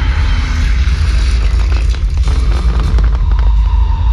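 Fireworks bursting, with a cluster of sharp cracks and crackles about halfway through, over a heavy, steady low rumble.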